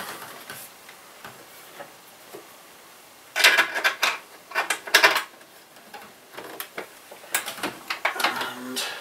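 Hand screwdriver driving screws through a fluorescent strip-light fitting into the underside of a shelf: scraping and clicking of the tool and the fitting. A dense burst of rasping comes about three and a half seconds in, followed by scattered clicks and knocks.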